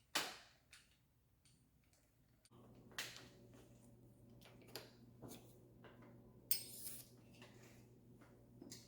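A few sharp clicks and knocks of metal bicycle parts and tools being handled during reassembly, with a low steady hum that starts a couple of seconds in.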